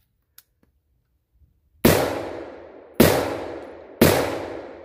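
Three shots from a 5.56 AR-15 pistol, about a second apart, each followed by a long echo dying away. The first comes nearly two seconds in.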